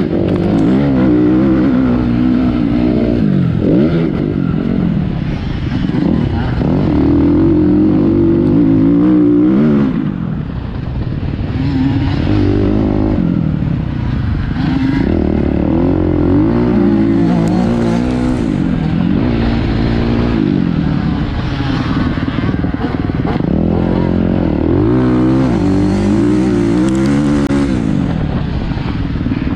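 Motocross dirt bike engine revving hard and backing off over and over, its pitch climbing under throttle and dropping again every couple of seconds.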